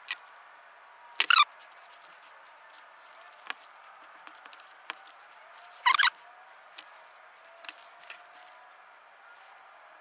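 Hand wire stripper and crimping pliers working on thin motorcycle harness wires: two short, sharp squeaky scrapes, about a second in and again about six seconds in, with small clicks and rustles of handling between.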